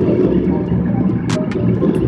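Motorcycle running steadily, a continuous engine drone with road noise, and two short sharp clicks about a second and a half in.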